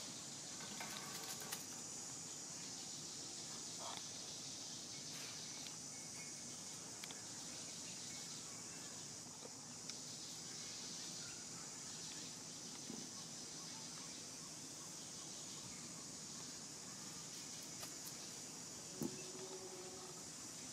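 A steady, high-pitched insect chorus drones on without a break, with faint scattered clicks and a short, louder knock near the end.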